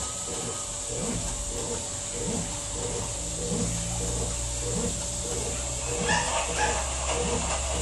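Washing machine agitating: a steady motor hum under an even back-and-forth churning, about two strokes a second. From about six seconds in, short high-pitched sounds repeat about twice a second over it.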